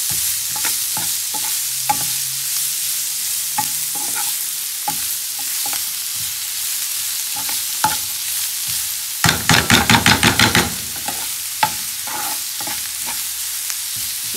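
Chopped onions sizzling in oil in a Tefal granite-coated frying pan, stirred with a steel spatula that scrapes and clicks against the pan. About nine seconds in comes a quick run of fast scrapes, around eight a second, lasting about a second and a half.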